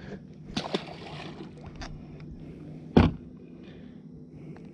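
Brief rustling handling sounds, then a single loud, sharp thump about three seconds in, as a caught largemouth bass is let go over the side of a small fishing boat.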